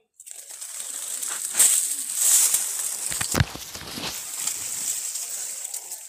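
Leaves and branches of a coffee plant rustling and scraping against a phone as it is moved through the foliage, with louder crackles at about one and a half and two and a half seconds and a knock a little past three seconds. A steady high whine runs underneath.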